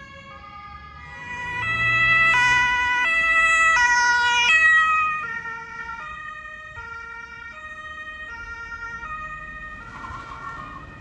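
German two-tone emergency vehicle siren (Martinshorn) alternating between its two notes, loudest for a few seconds about one and a half seconds in as the vehicle passes close, then dropping away.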